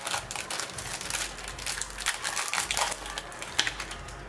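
Plastic-foil wrapper of a hockey trading card pack crinkling and crackling as it is handled and opened, in a run of irregular crackles with the sharpest one near the end.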